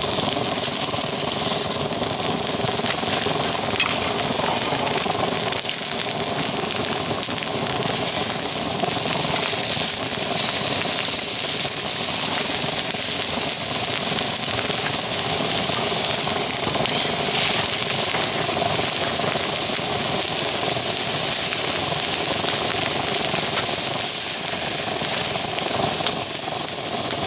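Thick beef steaks sizzling steadily on a hot steel checker-plate griddle over a pellet stove, with a steady hum underneath.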